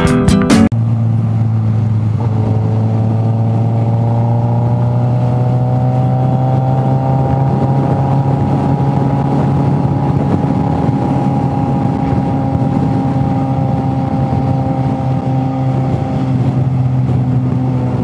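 A guitar music sting cuts off less than a second in. Then a motorcycle engine runs steadily at highway speed under a rush of wind, its pitch creeping slowly upward for several seconds as the bike gains speed before levelling off.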